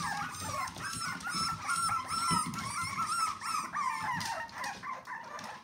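Litter of young puppies whining and yelping, many short high-pitched cries overlapping one another without a break.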